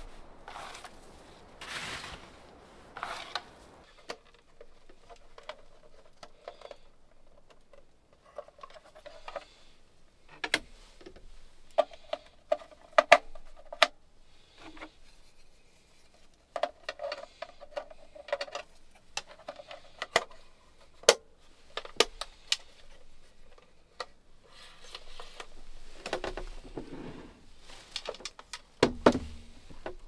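Scattered sharp clicks, taps and rubbing from a portable radio being handled on a wooden table. The first few seconds hold a few longer rustling strokes.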